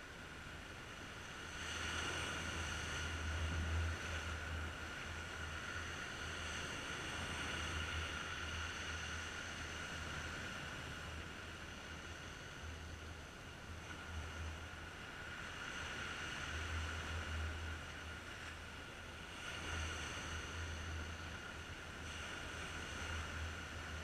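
Sea waves washing over a rocky shore, the surf swelling and easing every few seconds, with a low rumble underneath.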